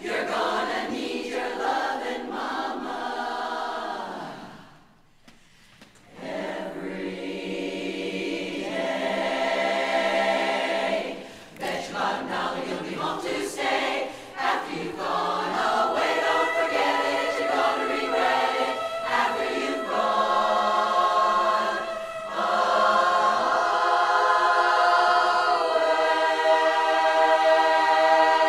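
A women's chorus singing a cappella in harmony. The voices drop almost to nothing for about a second and a half around five seconds in, then come back and swell into a loud, held chord near the end.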